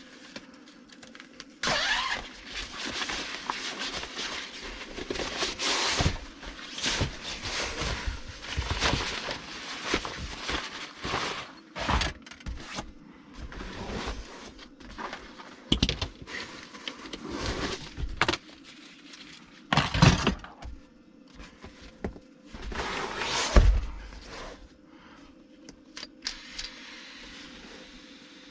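Things being handled and moved about: irregular rustling with many clicks, clatters and thunks, the loudest knocks about twenty and twenty-three seconds in.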